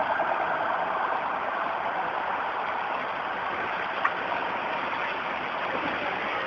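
Steady rushing noise of heavy rain and running flood water, with a single short click about four seconds in.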